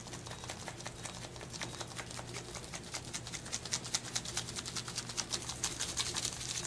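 Dry barbecue rub being shaken from a shaker bottle over cauliflower steaks: a fast, uneven rattle of granules that gets quicker and louder over the second half.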